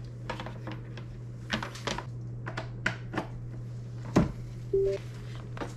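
Scattered clicks and knocks from a wired keyboard and mouse being handled and their USB plugs connected, over a steady low hum; a louder knock comes about four seconds in. Shortly after that, a short two-note chime rising in pitch sounds: the computer's new-device-connected sound as the mouse powers up and lights.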